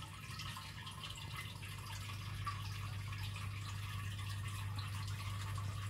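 Fish tank filter trickling and splashing water into the tank, with a steady low hum underneath.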